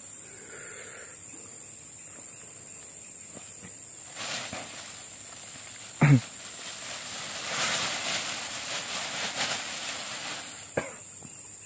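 Thin plastic bag crinkling and rustling as it is handled, loudest from about halfway through for some three seconds, over a steady high insect drone.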